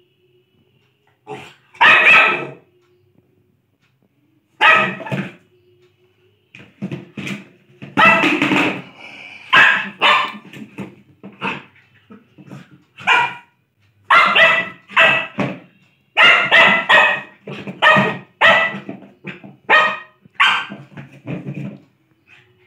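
Lhasa Apso barking over and over, short barks in irregular runs, at times several a second, broken by pauses of a second or two.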